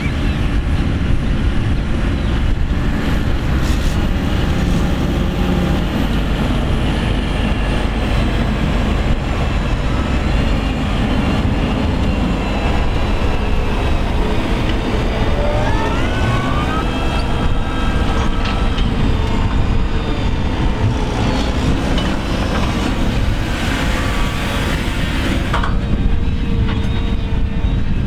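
Fendt 724 tractor's diesel engine working hard under load, pulling a five-furrow plough uphill, with a steady heavy rumble; its pitch rises briefly about halfway through.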